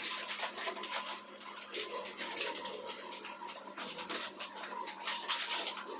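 Irregular rustling and light clattering of small objects being handled and moved about, with a faint steady hum underneath.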